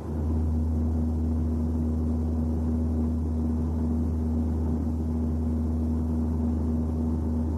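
Steady low drone with a constant humming tone above it, coming in abruptly and holding unchanged, of the kind a car's occupants hear as in-cabin noise.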